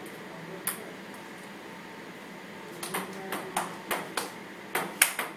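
Table tennis ball clicking off paddles and the table during a rally: one hit about a second in, then a quick run of about nine sharp clicks in the last two and a half seconds.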